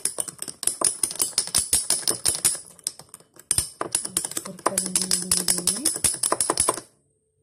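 Metal spoon rapidly clinking against a tall glass as instant coffee, sugar and a little water are beaten into a frappé foam. It pauses briefly about three seconds in, then resumes and stops just before the end.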